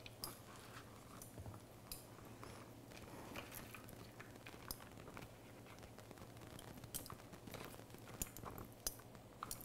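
Faint kitchen handling sounds: scattered soft clicks, taps and rustles of hands and a wooden spoon working on a wooden board, picking up shredded red cabbage and laying it on a collard leaf, over a low steady hum.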